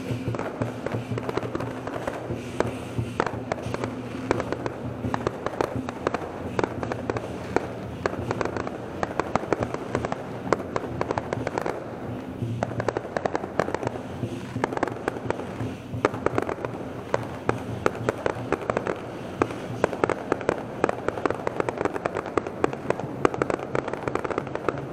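Fireworks and firecrackers going off in a dense, unbroken crackle of rapid pops, over a steady low hum.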